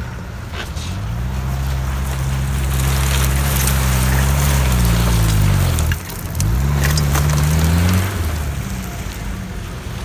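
Mitsubishi Pajero Mk2 engine revving under load as the SUV crawls through a deep rut. The revs climb and hold high, dip sharply about six seconds in, rise again, and ease off near the end.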